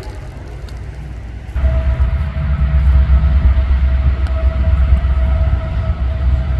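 Approaching diesel locomotive, its low engine rumble jumping suddenly louder about a second and a half in, with a steady whine over it.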